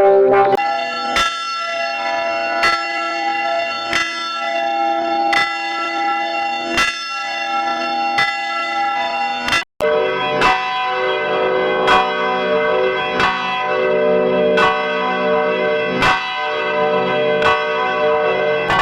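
Church bell tolling, struck about every second and a half, each stroke ringing on into the next. Just under ten seconds in it cuts off for an instant, and a bell with a different, lower ring takes over at the same pace.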